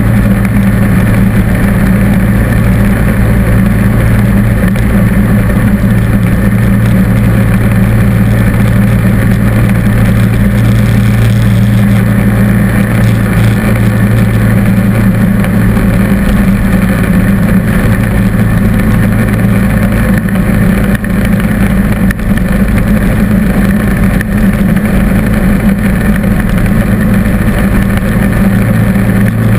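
John Deere D140 lawn tractor engine running steadily under load while its front-mounted snow blower throws snow, a loud, unbroken mechanical drone with a strong low hum.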